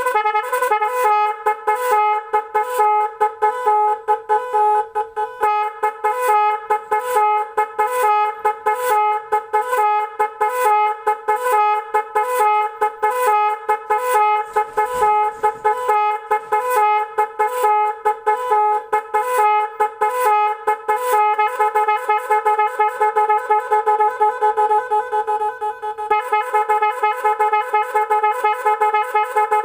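A 12-volt 18-pattern digital 'magic' horn sounding a rapid repeating beep pattern of bright, brassy multi-tone notes. It switches to a different pattern about 21 seconds in and again near the end, when the beeps run together into a warbling tone.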